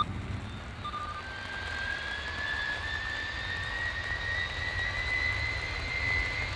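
Airbus A310's jet engines spooling up for the takeoff roll: a whine that rises slowly in pitch over a steady low rumble.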